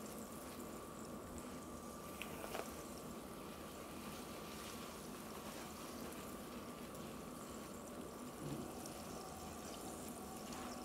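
Faint soft squishing and rustling of a hand working wet flour dough, mixed with sparkling water, in a bowl, with a couple of slightly louder squelches. A steady faint hum runs underneath.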